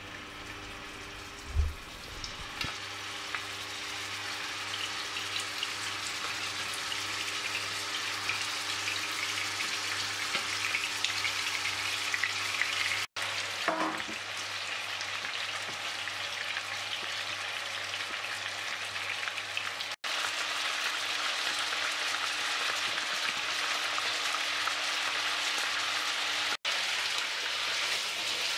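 Minced-beef köfte frying in hot oil in a pan: a steady sizzle that grows louder over the first several seconds as more köfte go into the pan, then holds. A soft knock comes about a second and a half in, and the sizzle cuts out for an instant three times.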